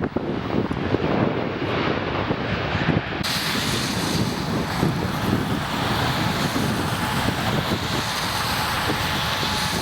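Wind gusting on the microphone, then from about three seconds in a steady jet roar from a Boeing 737-800 airliner's engines, starting abruptly and holding to the end.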